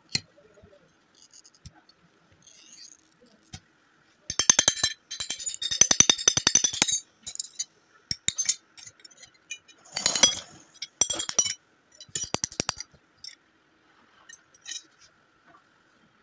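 The metal end of a glass cutter tapping rapidly on sheet glass along scored curved lines to run the cuts. It comes as several bursts of quick clinks, the longest lasting about three seconds, with a noisier burst about ten seconds in.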